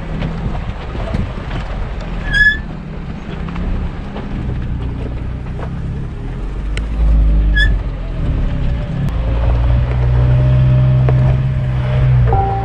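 Off-road SUV engine running under load on a rough trail, getting louder and heavier about halfway through. Two short high chirps sound, one early and one in the middle.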